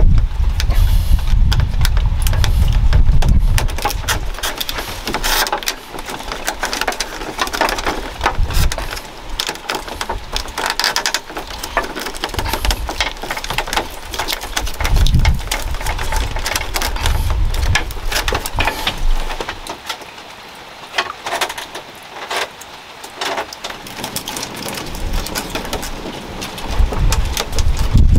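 Dry bamboo strips crackling and rustling as they are pushed and tucked by hand into the rim of a woven bamboo basket tray, with many irregular light clicks and a few low thumps.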